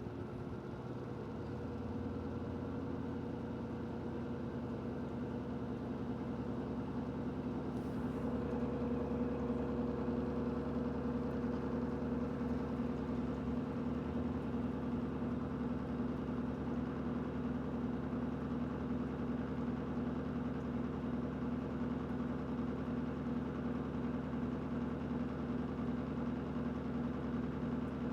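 Electrolux LED14 washing machine in its spin cycle on the medium spin setting: a steady motor hum with a held tone that builds over the first ten seconds or so, then holds steady.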